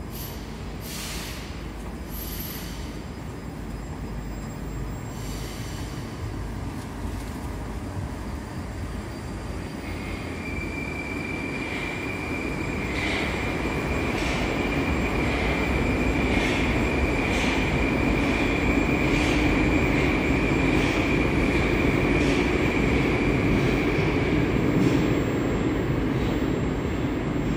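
A Moscow metro 81-765 "Moskva" train running, heard from inside the car: a steady low rumble. About ten seconds in, a steady high whine joins it with evenly spaced clicks as the train slows into the station. The sound grows louder, then eases off near the end as the train comes to a stop.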